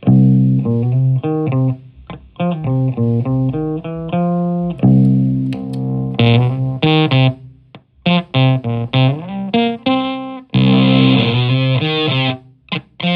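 Fender Stratocaster electric guitar played through a Zonk Machine fuzz pedal into an Ampeg VT22 valve amp and 4x12 cabinet: short riffs of quick single notes with brief breaks between them. Near the end a fuzzy chord rings on for about two seconds before cutting off.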